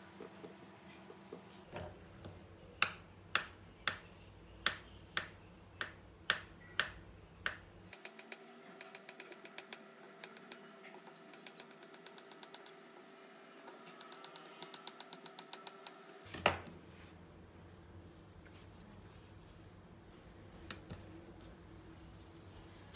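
Small kitchen knife cutting a rope of tapioca dough into pieces, the blade clicking on the countertop with each cut: about two cuts a second at first, then a quicker run of clicks, and one louder knock about two-thirds of the way through.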